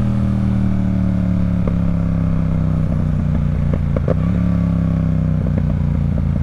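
Yamaha R7's parallel-twin engine running at road speed. Its pitch eases slowly down and then steps up about four seconds in, with a few light clicks over it.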